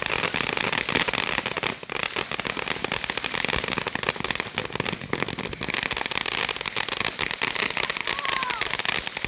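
Fireworks crackling: a dense, continuous run of rapid sharp pops and snaps with no pause.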